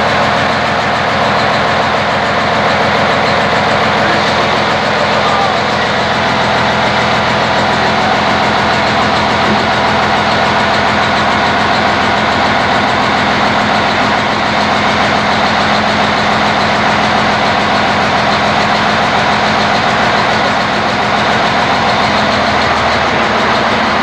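Inboard marine diesel engine running at a steady idle on its first test run after installation.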